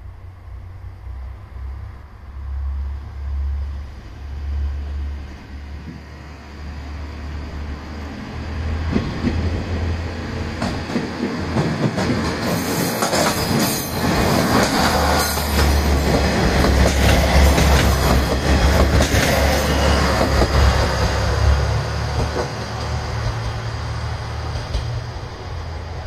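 Three-car JR Shikoku Type 1200 diesel railcar train approaching and passing close by. Its rumble builds from about eight seconds in; the engines and the wheels clattering over the rail joints are loudest from about twelve to twenty seconds in, then fade as it moves off.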